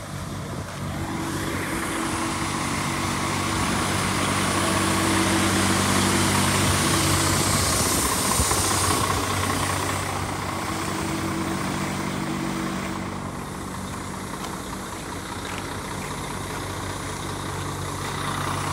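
Heavy truck engine idling steadily. A louder wash of engine and road noise swells over the first several seconds, then fades away after about ten seconds.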